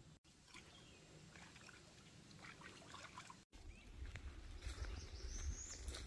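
Faint swamp ambience with scattered small chirps and clicks. About three and a half seconds in, after a brief cut, a gusty low rumble of wind on the microphone comes in. A high, slightly rising bird whistle sounds near the end.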